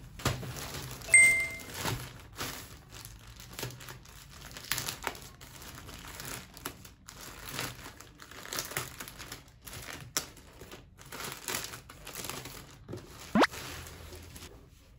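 A thin plastic mailer bag crinkling as it is handled and opened, with irregular rustles and crackles. About a second in there is a short, loud beep-like tone. Near the end comes a brief rising squeak.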